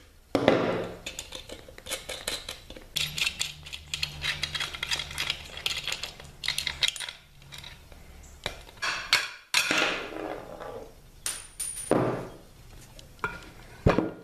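Steel wheel bolts being worked out with a socket wrench: ratchet clicking and metal clinks and knocks of the tools, bolts and wheel halves, with a fast run of clicks in the middle.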